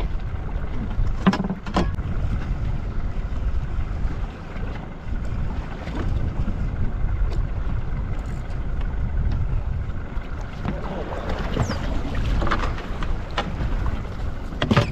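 Wind buffeting the microphone and sea washing around a small boat, with a couple of sharp knocks early on. A flurry of irregular splashing and knocking comes near the end as a hooked croaker is brought to the landing net at the hull.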